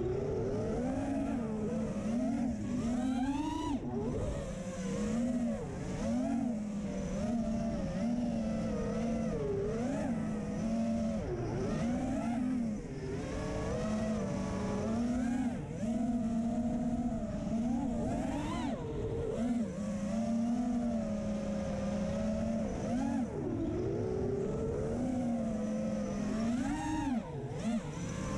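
A 5-inch FPV freestyle quadcopter's TBS Silk brushless motors and three-blade props whine, the pitch rising and falling every second or two as the throttle is worked, over rushing air noise.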